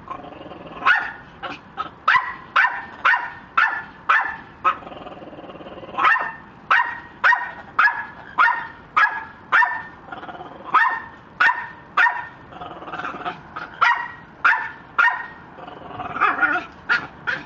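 A dog barking over and over: short sharp barks, about two a second, in runs with brief pauses between them.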